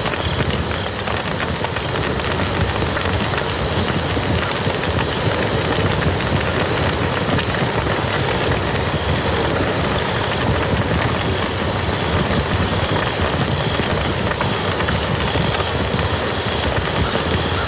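Campfire crackling and popping over the steady rush of a river, with faint high chirping near the start and about halfway through.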